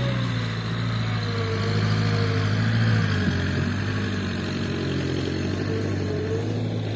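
Diesel engine of a light dump truck loaded full with red soil, running under load as the truck crawls across a soft field track. It grows louder about three seconds in and then eases as the truck moves off.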